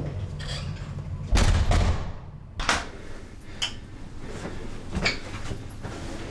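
A door closing with a heavy thud, then several separate sharp clicks and knocks of cupboards and things being handled in a small kitchen, over a low room hum.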